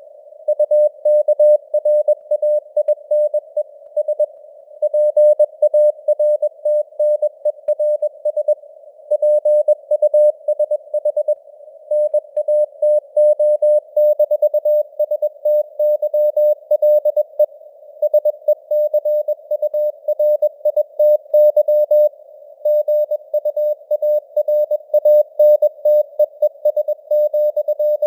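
Morse code at 21 words per minute: a single tone near 600 Hz keyed on and off in dots and dashes, with brief pauses between words. It plays over a narrow band of simulated radio hiss around the tone, with the signal strength fading up and down.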